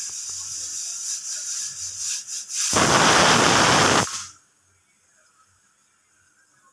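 Hawkins pressure cooker venting steam under its regulator weight: a hiss that swells about three seconds in into a loud whistle lasting over a second, then cuts off suddenly. It is one of the pressure releases, or 'whistles', that are counted to time the cooking.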